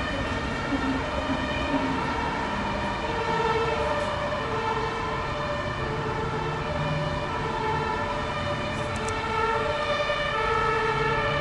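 Emergency vehicle's two-tone siren switching between a lower and a higher note about every three-quarters of a second, over a low traffic rumble, growing a little louder near the end.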